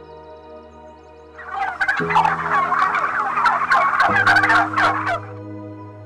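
A fowl's loud, rapid gobbling chatter, starting about a second and a half in and lasting about four seconds, over soft background music with held chords.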